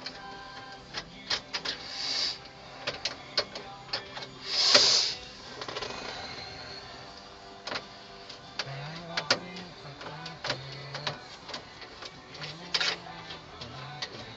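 Irregular clicks, taps and scraping from hand work on a pickup truck's plastic dashboard bezel and its screws, with a louder scrape about five seconds in. A low hum comes and goes twice in the second half.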